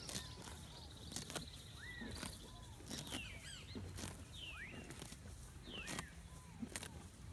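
Zebu oxen grazing close by, tearing off mouthfuls of grass in irregular crunching bites every half second or so. Birds chirp around them, with a short buzzing trill in the first couple of seconds.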